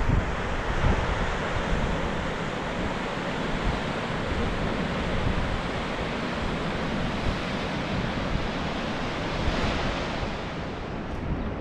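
A fast mountain river rushing over rocks, a steady roar, mixed with wind buffeting the microphone in low gusts. The rushing fades somewhat near the end.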